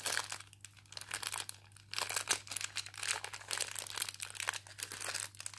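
A small clear plastic bag of wargaming bases and metal parts crinkling and rustling as it is turned over in the hands, in quick irregular crackles that thin out for a moment about half a second in and pick up again about two seconds in.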